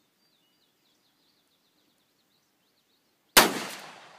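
A single .357 Magnum shot from a Smith & Wesson 386XL Hunter revolver, a 6-inch scandium-frame gun, about three and a half seconds in. The shot is followed by an echo that trails away over the next second.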